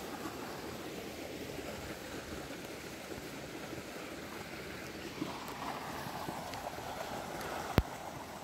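Steady rushing of water pouring from an inflow pipe into a pond, mixed with wind on the microphone. One sharp click near the end.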